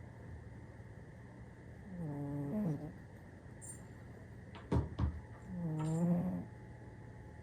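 A sleeping cat snoring: two drawn-out, pitched snores about three and a half seconds apart, over a steady low hum. Two sharp clicks come just before the second snore.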